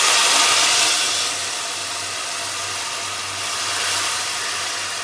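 Hot water poured onto hot caramelized sugar in an uruli, hissing and sizzling hard as it turns to steam. It is loudest in about the first second, then settles into a steady hiss.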